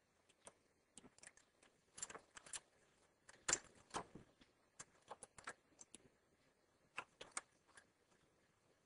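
Faint, irregular small clicks and taps of a metal stitch-transfer tool and latch needles on a double-bed knitting machine as stitches are moved from needle to needle. The loudest click comes about three and a half seconds in.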